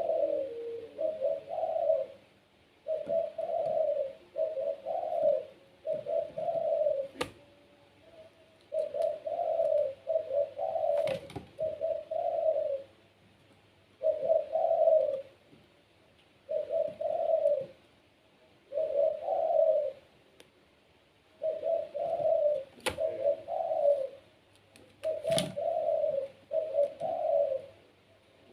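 Puter pelung, a domestic ringneck dove, cooing over and over: short runs of two or three round coos, each run a couple of seconds apart. A few sharp clicks come in between.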